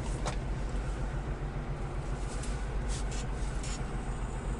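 Kenworth semi truck's diesel engine idling steadily, heard from inside the sleeper cab, with a few short clicks and rustles of someone rummaging for a flashlight.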